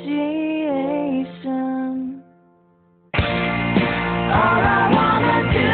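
Background music: a melody over a held low note fades out about two seconds in, then after about a second of near silence a different, fuller song starts abruptly.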